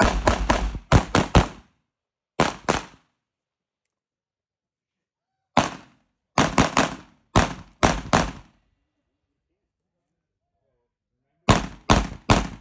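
Semi-automatic rifle fire from a Polish wz. 88 Tantal in 5.45×39: about twenty shots in five quick strings of one to six shots, with pauses between strings.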